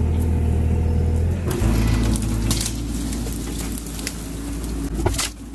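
Bobcat E42 mini excavator's diesel engine running under hydraulic load, its note shifting about a second and a half in, while it drags cut cedar trees out of a pile, with branches cracking and snapping several times.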